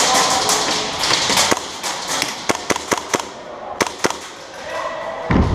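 Airsoft guns firing a string of sharp single shots at uneven spacing, about ten cracks in all, followed near the end by a heavy low thump.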